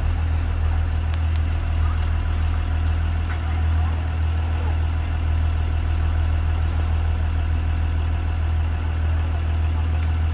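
Blue Bird Vision school bus engine idling, a steady low hum with no change in speed.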